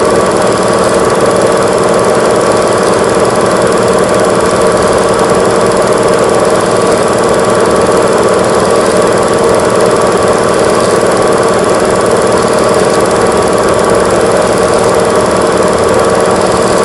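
Old Super 8 film camera running, its motor and film mechanism giving a steady, unbroken rattle.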